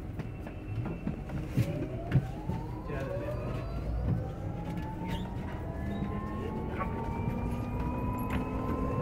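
Olectra K9 electric bus heard from inside the cabin: the electric drive's whine climbs steadily in pitch from about two seconds in as the bus gathers speed. Under it is a road rumble, with a few knocks and rattles from the body early on.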